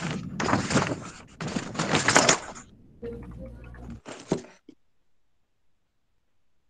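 Crackling, rustling noise with sharp knocks coming through a participant's open microphone on a video call, fading to a hum and one last knock, then cutting off to silence about four and a half seconds in.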